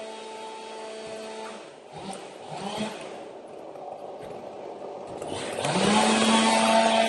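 A power tool's motor running steadily, then dying away; after a few knocks and scrapes it spins back up with a quick rising whine about five and a half seconds in and runs louder at full speed.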